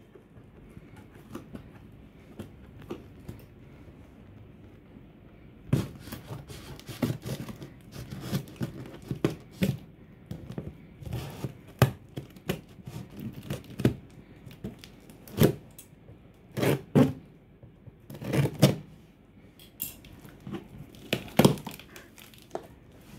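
Scissors cutting along the sealed seam of a cardboard box: quiet at first, then from about six seconds in a run of sharp snips, tearing and cardboard rustling, loudest in the second half as the flaps come open.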